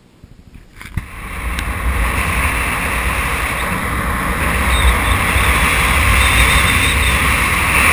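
Steady rushing wind noise on a paraglider pilot's harness-mounted camera microphone in flight, with low buffeting rumble, starting suddenly about a second in.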